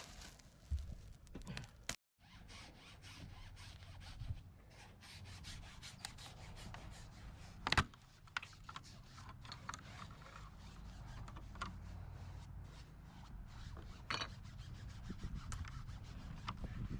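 Plastic windshield pillar trim being worked by hand: steady rubbing and scraping with many small clicks, and a sharper knock a little under 8 seconds in.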